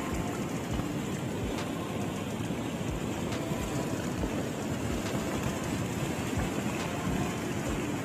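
Steady rushing noise of a violent storm, with low thuds that fit wind gusts buffeting the microphone.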